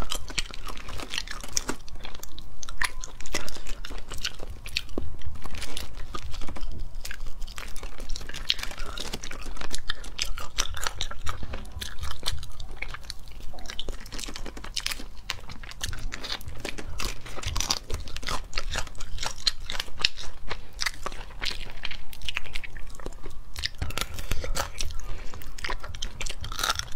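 Cooked crayfish shells crackling and crunching as they are broken apart by hand, mixed with close-up biting and chewing of the meat.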